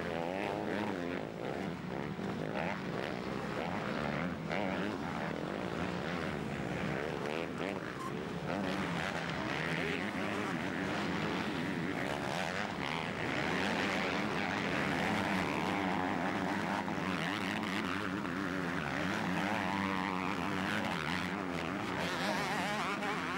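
Several motocross bikes' engines running hard as they race along the dirt track. Their pitch keeps rising and falling with the throttle, and the sound grows somewhat louder about halfway through as bikes come closer.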